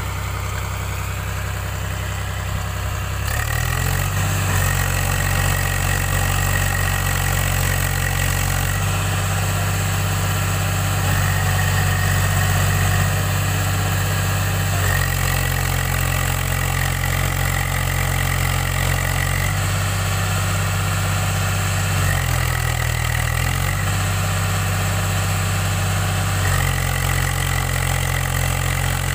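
Swaraj 735 FE tractor's three-cylinder diesel engine running hard while stuck in deep mud with a loaded trolley. Its revs rise a few seconds in, then step up and down several times, with a high whine at the higher steps.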